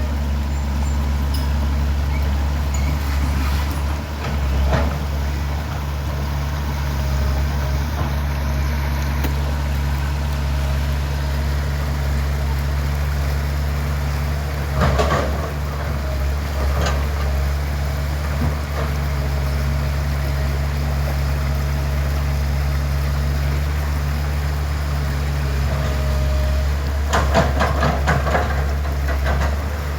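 Excavator's diesel engine running steadily at a constant pitch, with bursts of knocks around the middle and again near the end, as the bucket works stuck mud off the roller.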